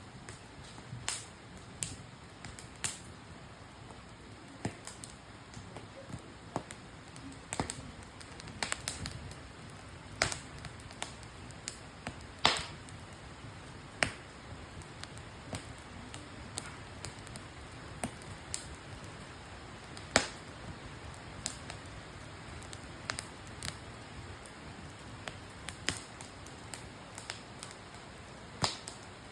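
Wood campfire crackling: irregular sharp pops and snaps, a few much louder than the rest, over a low steady hiss of burning.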